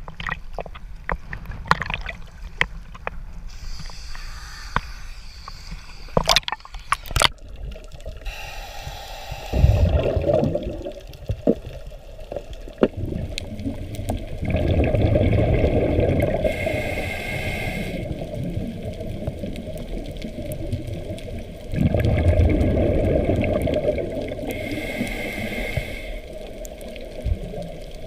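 Scuba diver's breathing heard underwater through a camera housing: exhaled bubbles gurgle and rumble in bursts of a few seconds, with quieter pauses between breaths. Before that, for the first several seconds, water sloshes at the surface with scattered clicks.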